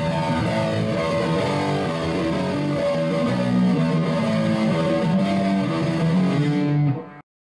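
Intro music led by guitar, with a steady run of notes over a bass line, cutting off suddenly near the end.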